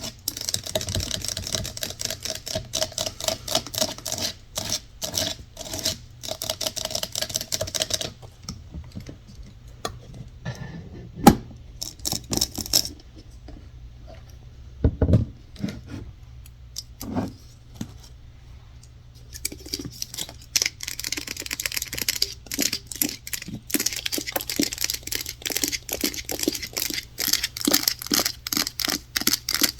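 Fast, dense tapping on objects, probably fingernails on hard surfaces. Around the middle it thins to slower, scattered single taps, then turns fast again.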